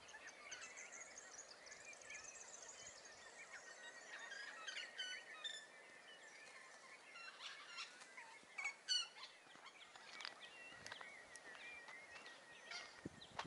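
Faint birdsong from several birds in coastal scrub: scattered short chirps and quick falling whistles, over a soft outdoor hiss.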